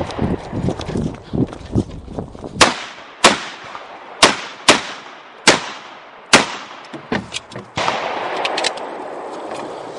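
Revolver fired six times in about four seconds, the shots roughly half a second to a second apart, each a sharp crack with a short ring-out. They follow a couple of seconds of footsteps and shuffling, and a few light clicks come after the last shot.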